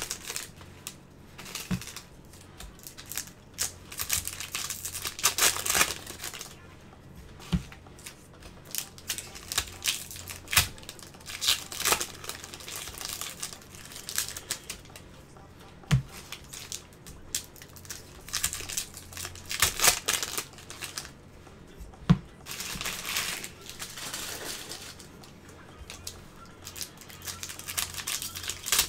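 Foil wrappers of Bowman baseball card packs crinkling in irregular bursts as they are handled, with a few sharp knocks of cards against the table.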